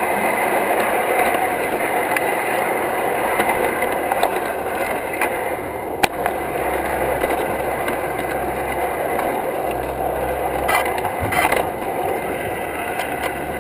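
Wheels of a G-scale model train car rolling along garden-railway track, a steady clattering rumble heard from right on the car. There is a sharp click about midway and two more near the end.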